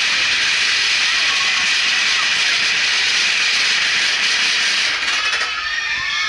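Mine-train roller coaster rushing along its track through a rock tunnel: a loud, steady roar of wheels on rails. About five seconds in the roar drops and thins as the train comes out into the open, and riders' shouts rise near the end.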